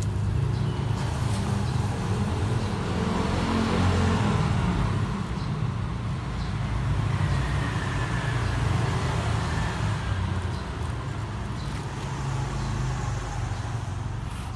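Motor vehicle engine and road traffic, a continuous low rumble that swells about four seconds in, with a faint falling whine a few seconds later.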